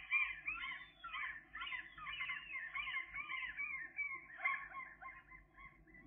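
Several songbirds singing at once, many overlapping whistled and warbled phrases, thinning out and fading near the end.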